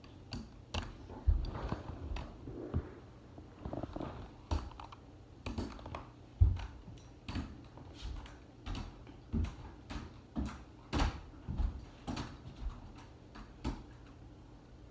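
Aluminium crutches and a foot knocking on the floor as someone walks on crutches: an irregular series of dull knocks and thuds, about two a second, the loudest about six seconds in.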